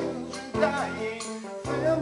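A man singing a solo verse of a song over instrumental accompaniment, with sustained notes under the voice.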